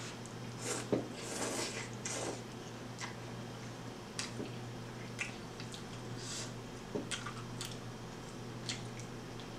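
Ramen noodles slurped into the mouth in a few short bursts in the first couple of seconds, then chewing with scattered soft, wet mouth clicks and smacks. A steady low hum runs underneath.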